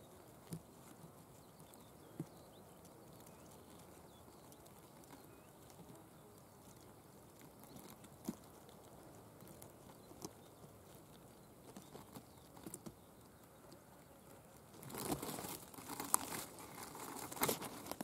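Leaves and stems rustling and crackling close to the microphone for the last few seconds. Before that there is a long stretch of faint background with a few soft clicks.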